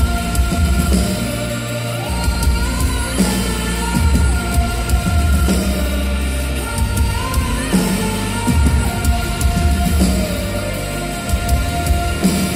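Live band music: a woman singing a long, held melody over bass, drums and electric guitar.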